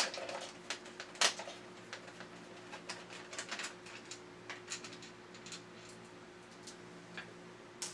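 A screwdriver turning screws out of a plastic toy robot's body, giving irregular small clicks and ticks of metal on plastic, one sharper click a little over a second in. A faint steady hum runs underneath.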